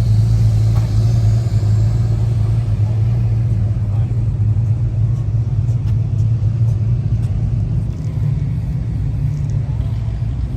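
Car on the move: a steady, loud low engine and road drone.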